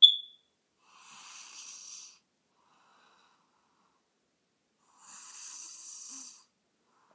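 Snoring in sleep: two long, hissy breaths about four seconds apart. A short, sharp high whistle right at the start is the loudest sound.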